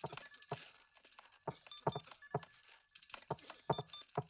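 A layered hospital sound-effects mix: a string of sharp, irregular clicks and knocks, with a few short electronic beeps in between.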